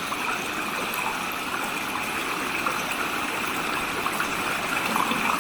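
Steady rush of flowing water from a stream or waterfall.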